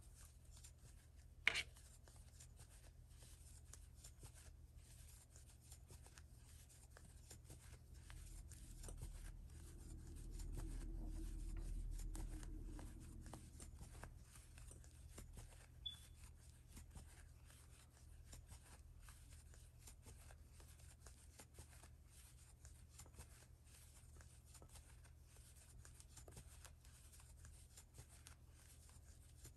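Near silence with faint rustling and light clicks of a crochet hook working yarn. A low hum swells and fades about ten seconds in.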